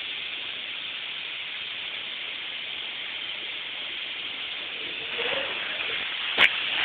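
Compressed air hissing steadily from a hole in an air compressor hose, growing a little louder about five seconds in, with a single sharp click near the end.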